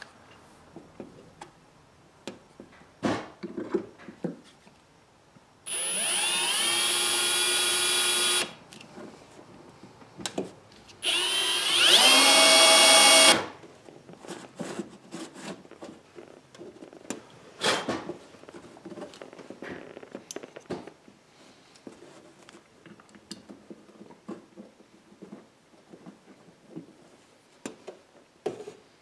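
Ridgid cordless drill running in two bursts, about three seconds and then about two, drilling a hole through the aluminum gunwale of a boat, with a steady whine. Light handling clicks and taps come before and after the bursts.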